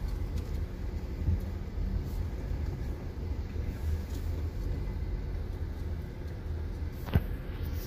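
Low, steady rumble inside a Range Rover Velar's cabin as it drives slowly over a rutted dirt track, with a single sharp knock near the end.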